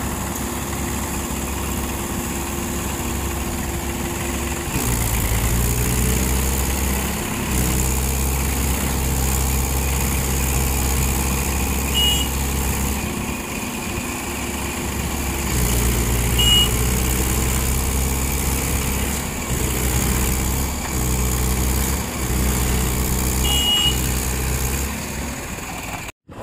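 Diesel tractor engine running, then revving harder about five seconds in and surging up and down under load as the tractor strains in deep paddy mud.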